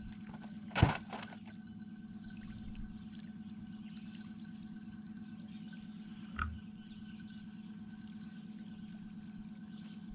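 Steady low hum of a small motor running, with a sharp knock about a second in and a dull thump about six and a half seconds in.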